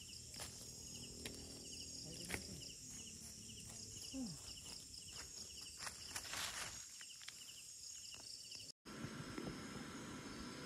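Jungle insects: a steady high-pitched chorus with a regular chirp repeating through it, over scattered clicks and knocks and a brief rustle a little past halfway. Near the end the sound cuts out abruptly and a different background takes over.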